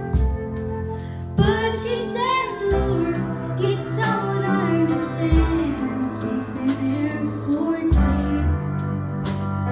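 Music: a woman singing with instrumental backing. Her voice comes in about a second and a half in.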